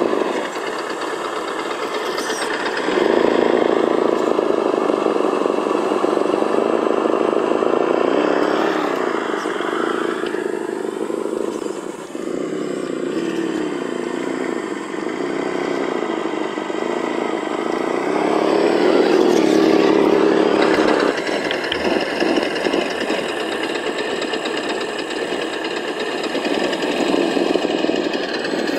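Simulated engine sound from a SENSE Innovations ESS-One+ sound module, played through the small onboard speaker of an Axial SCX10 RC crawler as it drives. The engine note rises and falls with the throttle, with a louder rev about two-thirds of the way through.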